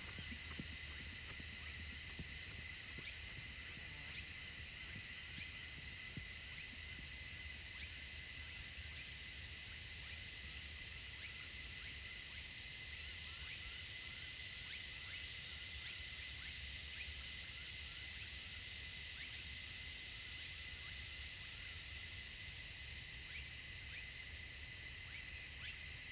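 Rural outdoor ambience: a steady high-pitched insect drone with many faint scattered chirps over it, and a low rumble underneath.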